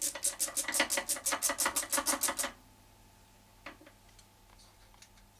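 Micrometer ratchet stop clicking rapidly and evenly, about nine clicks a second, for two and a half seconds, then stopping abruptly. This is the micrometer being run in against a 62 mm setting for measuring a crankcase bearing. A single light tick follows a little later.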